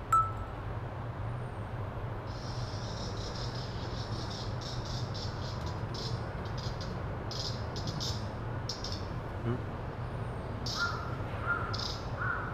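An unfamiliar rasping animal call, like a saw, repeated in short strokes with pauses from about two seconds in. A knock right at the start, and a few short caws near the end.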